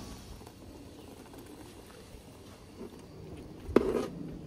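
Low, even background noise with a single sharp knock about three-quarters of the way through.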